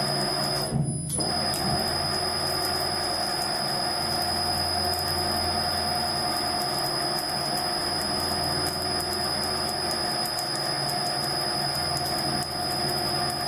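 Uzor-N1 cold-forging machine's drive running steadily as it winds 15 mm square profile tube into a spiral around its 114 mm drum. It is a steady mechanical drone with a low hum and a high whine.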